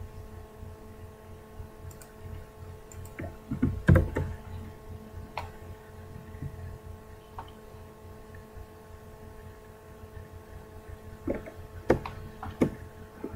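Scattered computer keyboard and mouse clicks, with a louder knock about four seconds in, over a steady hum with several tones.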